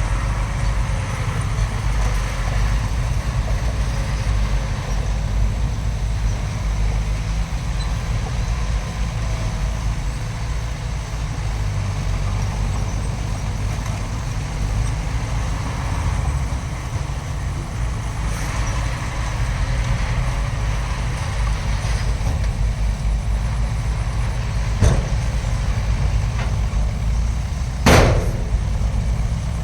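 Heavy diesel earthmoving machinery running steadily with a deep low rumble. Near the end come two sharp knocks; the second is louder and rings briefly.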